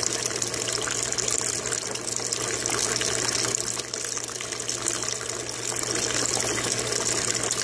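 Bell siphon in full discharge, draining an aquaponics grow bed: a steady stream of water pours from the siphon outlet pipe and splashes into the tank below. Beneath it a Venturi aerator bubbles. The siphon is working properly.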